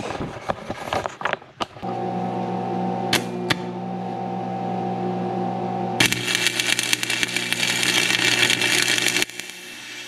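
Electric welder humming steadily, then from about six seconds in the welding arc crackles and hisses as a bead is run on steel frame plate. The crackling drops in level near the end.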